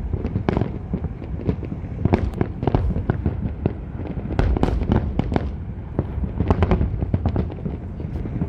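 A fireworks display going off in a rapid, irregular barrage of bangs and crackles over a steady low rumble.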